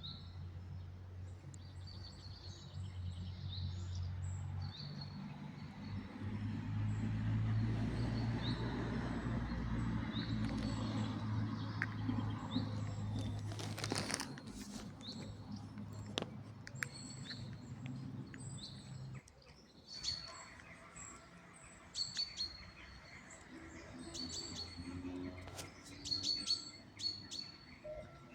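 Small birds chirping again and again in short high calls. For the first two-thirds they sound over a low steady rumble, which stops suddenly. There is one sharp crackle about halfway through.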